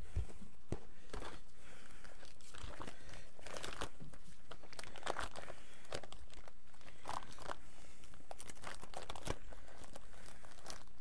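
Irregular crinkling and rustling of plastic as a trading card is handled and slid into the plastic sleeve pages of a card binder.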